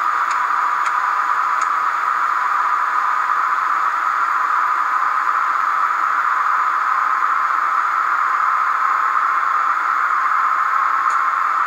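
Sound decoder in a Roco ÖBB 1670 model locomotive playing a steady, even hiss through its small 15×11 mm speaker while the model stands still, with a faint low hum underneath and a few faint clicks near the start.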